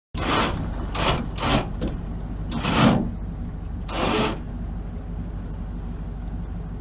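Boat engine running steadily under way, heard from inside the cabin as a low hum. Over the first four seconds or so it is broken by five short rushing whooshes, the loudest about three seconds in.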